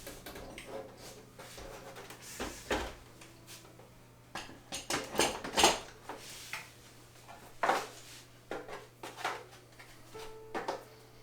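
Scattered clicks, knocks and light clatter of a computer monitor and its cables being handled and plugged in, the loudest cluster about five to six seconds in, over a faint steady hum.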